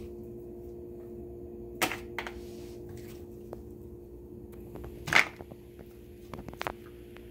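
Metal spoon knocking and clicking while butternut squash pulp and seeds are scooped out and dropped into a plastic tub: two sharp knocks, the louder about five seconds in, and a few light clicks, over a steady low hum.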